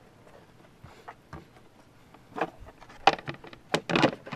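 Hard plastic air filter box cover knocking and clattering against the housing as it is fitted and pressed into place, a few light clicks at first and then a run of sharp knocks in the second half.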